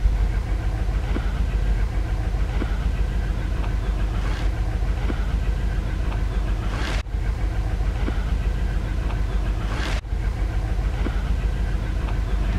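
Steady low rumble of a WDM 3D ALCo diesel locomotive hauling an express train as it approaches from a distance.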